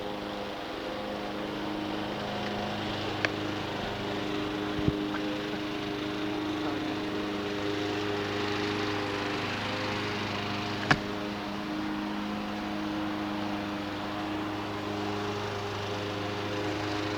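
Steady motor hum with a low drone and several overtones, broken by a few sharp clicks, the loudest about eleven seconds in.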